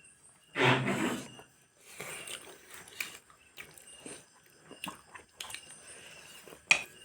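A person chewing and biting food close to the microphone, with a louder crunch about a second in, then scattered small clicks and scrapes.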